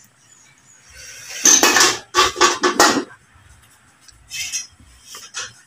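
Kitchen clatter of a plastic cutting board and hanging metal woks knocking together and against the tiled wall as the board is lifted off its hook. A quick run of five or six loud clanks, then a few lighter knocks.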